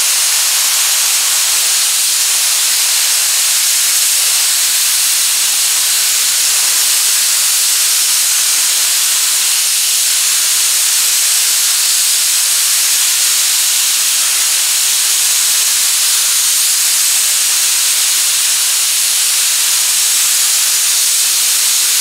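Touch-up spray gun on a compressed-air hose hissing steadily as it dusts a dry coat of epoxy primer, its air turned up so there is more air than paint.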